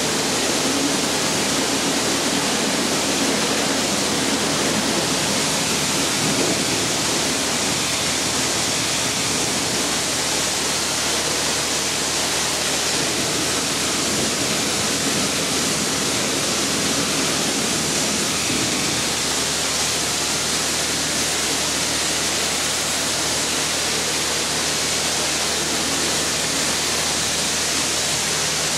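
High-pressure washer spray hissing steadily against a combine harvester's body, with a faint steady low hum underneath.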